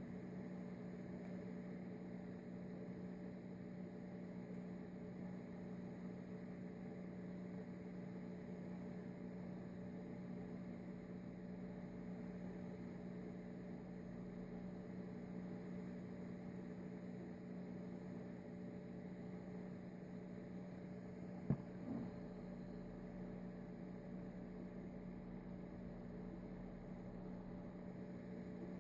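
Steady low electrical hum, with two brief sharp clicks about three-quarters of the way through.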